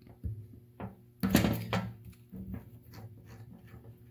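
A petcock valve with its fuel filter knocking and scraping against a metal diesel generator fuel tank as it is handled and fitted into the tank's opening: a few sharp knocks, with the loudest, a short scraping clatter, a little over a second in.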